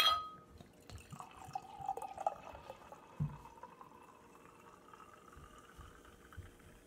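A single sharp glass clink as the bottle meets the glass, then hard cider pouring from the bottle into a stemmed glass, the pitch of the pour slowly rising as the glass fills before it tails off.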